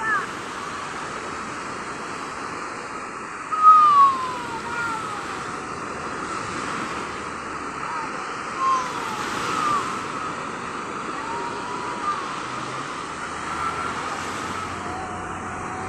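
Sea surf and wind on the microphone as a steady rush, with short, high, falling calls or cries every second or two, loudest about four seconds in.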